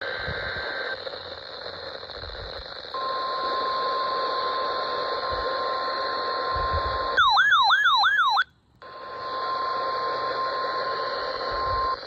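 NOAA Weather Radio warning alarm tone, a steady single tone near 1 kHz over receiver static, sounding ahead of a tornado warning. About seven seconds in it is broken by a loud, quick warbling siren-like alert of four rising-falling sweeps, then a moment of silence, and the steady tone comes back.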